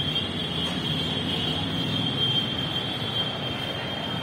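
Ambient noise of an elevated metro station platform: a steady low rumble with a steady high-pitched whine that stops just after the end.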